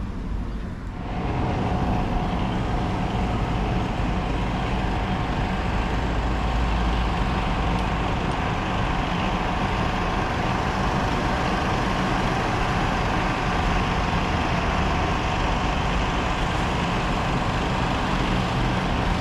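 Steady motor-vehicle noise: a low engine rumble with a steady hum, growing louder and fuller about a second in and holding.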